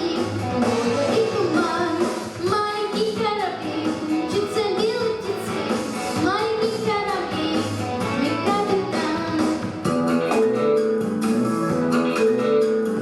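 A girl singing a children's song over an instrumental accompaniment. Her voice drops out about ten seconds in and the accompaniment plays on.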